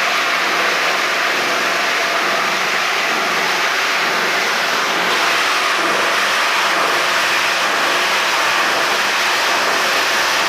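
Plastic granulator grinding scrap plastic: a steady, very noisy grinding roar that does not let up.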